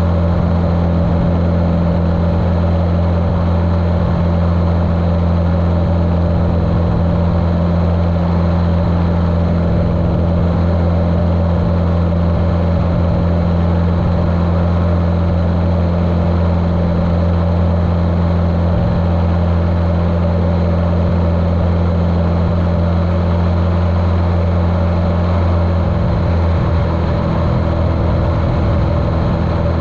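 Cessna 150L's Continental O-200 engine and propeller running steadily as a low drone, muffled through a waterproof camera case.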